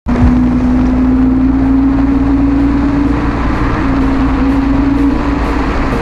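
Motorcycle engine running at a steady speed under heavy wind rumble, its pitch creeping slightly upward, then easing off about five seconds in.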